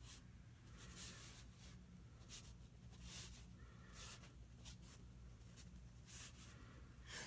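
Faint scratching of a pen sketching on paper in short, irregular strokes, over a low steady hum.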